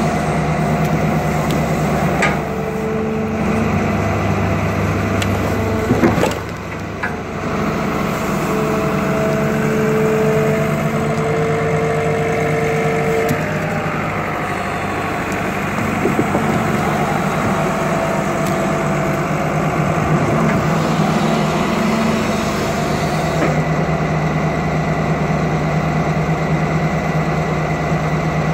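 Tracked excavator's diesel engine running steadily, with a higher whine that comes and goes as it works. A single sharp clank about six seconds in.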